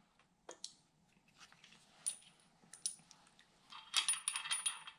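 Light metallic clicks and clinks of an aluminium cam-bearing installer plug and threaded steel rod being turned and seated by hand in the cam bore of a bare cast-iron big-block, with a quick run of ringing clinks about four seconds in.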